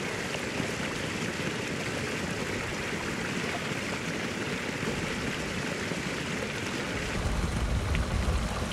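Small mountain stream splashing and trickling steadily over rocks. About seven seconds in, a low rumble of wind on the microphone joins it.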